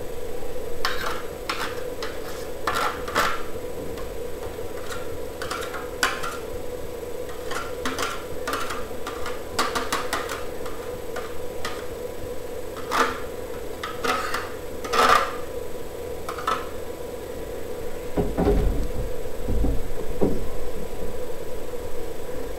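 Onion being rubbed on a metal hand grater: a series of short, irregular rasping strokes, then a few low thumps near the end.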